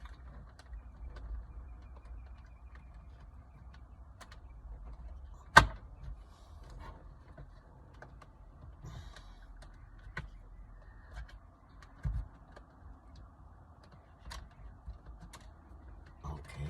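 Handling noise of small plastic parts: scattered light clicks and taps, one sharp loud click about five and a half seconds in and a duller knock about twelve seconds in, over a low steady hum.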